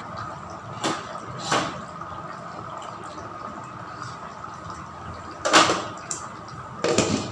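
Four short knocks and clatters over a steady faint hum: two small ones about a second in and two louder ones near the end.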